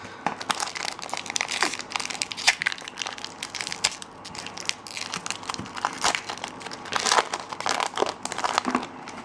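Crinkling and crackling of a Pokémon booster pack's foil wrapper being handled and opened, an irregular run of sharp crackles.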